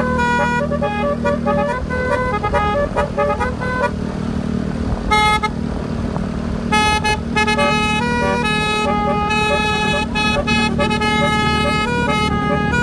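A Basuri snail-type 'telolet' musical horn playing a tune in quick stepped notes. About four seconds in it stops for nearly three seconds, broken by one short blast, then plays on. A steady low hum runs underneath.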